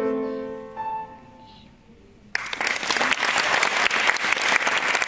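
Grand piano playing the last notes of a piece, the final note ringing and fading away; about two seconds in, an audience starts applauding and keeps clapping.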